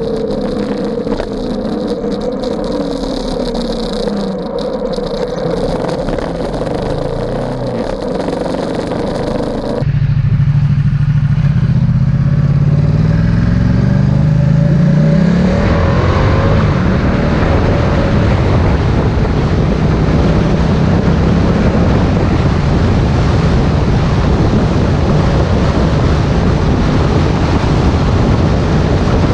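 Ducati XDiavel S's 1262 cc Testastretta V-twin on the road: cruising steadily at first, then about a third of the way in the sound changes abruptly and the engine pulls hard, its pitch rising for about five seconds. It then settles into a steady cruise under an even rush of wind and road noise.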